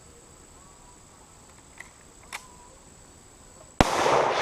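Crickets chirring steadily, with two faint clicks midway, then near the end a single loud rifle shot whose report rolls on and fades as an echo over a couple of seconds.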